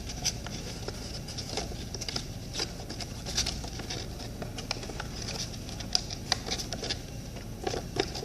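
Glue stick rubbed along the edges and tabs of card stock, making quick, irregular tacky scrapes and small squeaks.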